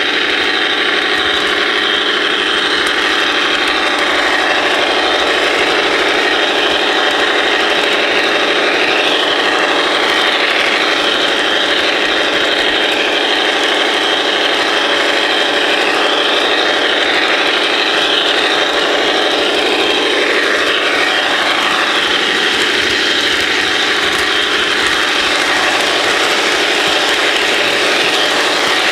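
HO scale model train running, its small electric motor and gears making a steady mechanical whirr, heard close up from a camera riding on the train.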